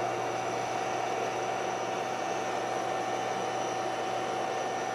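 Portable single-burner induction cooktop running at 2000 W with its internal cooling fan on: a steady rushing noise with a steady whine, as the pot of water on it heats toward the boil.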